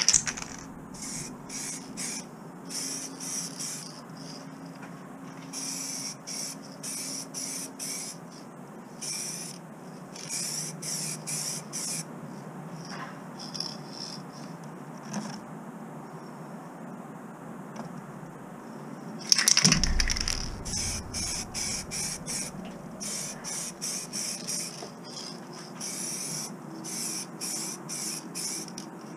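Aerosol spray-paint can spraying blue paint in many short bursts of hiss, each well under a second to about a second long, with brief gaps between them. About two-thirds of the way through there is one brief, louder rush with a low rumble.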